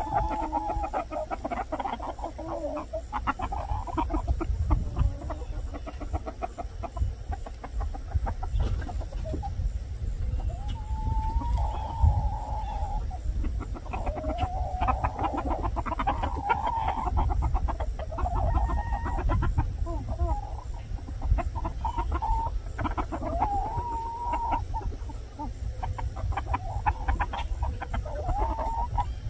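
Chickens clucking, with repeated drawn-out calls about a second long, over a low rumble.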